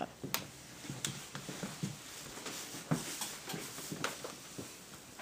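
Irregular soft knocks and sharp clicks from someone walking with a handheld camera: footsteps and handling noise, a few per second.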